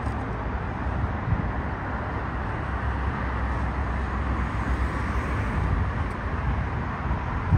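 Steady, even roar of outdoor airport ambience, mostly distant jet and vehicle noise, with an uneven low rumble underneath.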